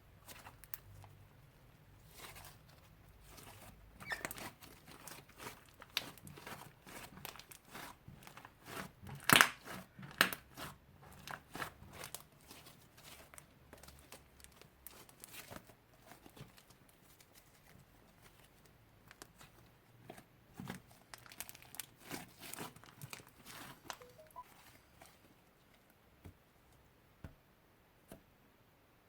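Slime being handled and squished, making irregular sticky crackles and crinkling pops. The loudest cluster comes about nine seconds in, and the sounds thin out near the end.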